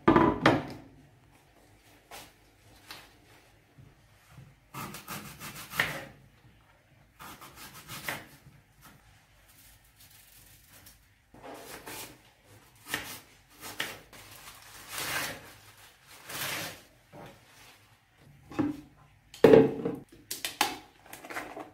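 Kitchen knife cutting and scraping through an apple on a wooden cutting board, in irregular strokes with pauses between. The board knocks down onto the counter at the start, and there are louder clunks near the end as a plastic blender jar is handled and set down.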